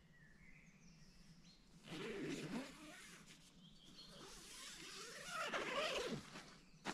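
Wild birds singing, short high whistles and chirps. From about two seconds in, a louder, rough, noisy sound rises over them, swelling again near the end, and a sharp click comes at the very end.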